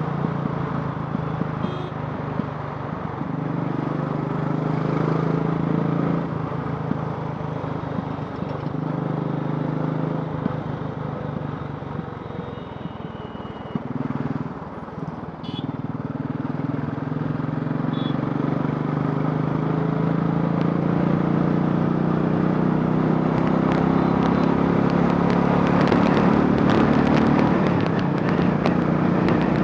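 Royal Enfield Classic 500's single-cylinder engine, converted from fuel injection to a carburettor, running steadily as the bike is ridden. The note dips briefly about halfway through, then climbs slowly as the bike gathers speed.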